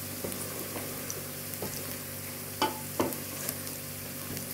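Small pieces of meat and onion sizzling as they dry-fry in a stainless steel pot, stirred with a spoon that scrapes and knocks against the metal several times, most sharply about two and a half and three seconds in.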